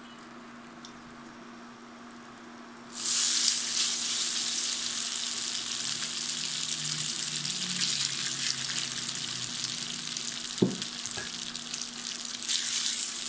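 Freshly cooked fettuccine going into hot melted butter in a stainless steel frying pan: after three quiet seconds with a low steady hum, a loud, even sizzle starts suddenly and keeps going. One sharp knock sounds about ten seconds in.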